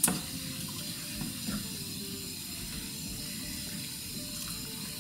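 A ladle scooping soup from a stockpot, the broth sloshing and dribbling, with a sharp clink right at the start.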